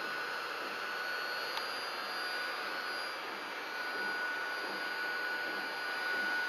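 3D printer's stepper motors running through the auto-home routine, driving the Z-axis bed supports: a steady high whine over a machine hiss, dropping slightly in pitch about halfway through.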